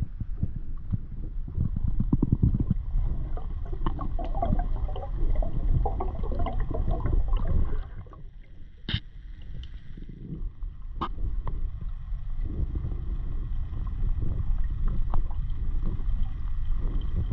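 Water sloshing and gurgling around a spearfisher's action-camera housing while swimming in the water. It goes quieter partway through, with two sharp clicks in that quieter stretch.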